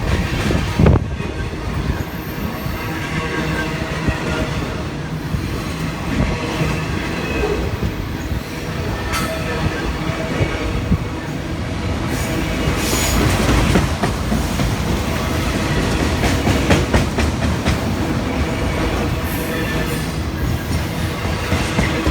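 Freight cars of a Union Pacific manifest train rolling steadily past, their steel wheels running on the rails.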